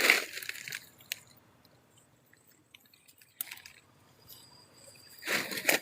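Rustling and crunching of leaves and undergrowth as someone moves through forest brush: a burst at the start, a quiet stretch with a few small snaps, then louder rustling near the end.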